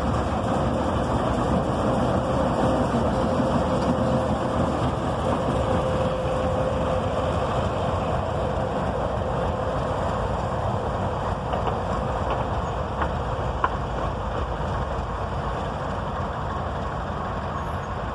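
Alco RSD-39 diesel locomotive passing close by with its engine running over a steady rumble of wheels on rail. The engine note fades about halfway through and the rumble slowly eases as the train moves away.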